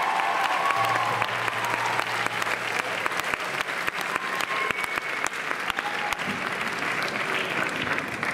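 Audience applauding after a live rock song, a dense patter of claps. The band's last held notes ring out and fade within the first couple of seconds.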